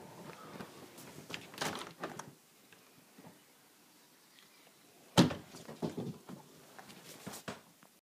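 A cat's paw tapping and scrabbling at a window pane, with scattered knocks and a sharp, loud knock about five seconds in.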